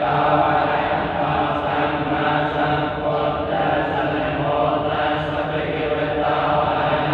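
Buddhist chanting in Pali, several voices in unison holding a steady low, near-monotone pitch without pause.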